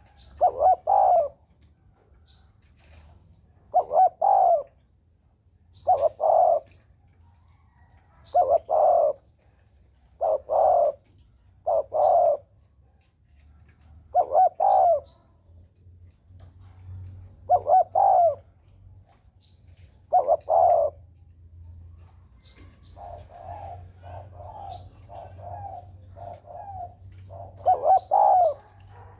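Spotted dove cooing: a loud multi-note coo phrase about every two seconds, with a quicker run of shorter, softer coos a little after two-thirds of the way through. Thin high chirps of a sunbird come in between the phrases.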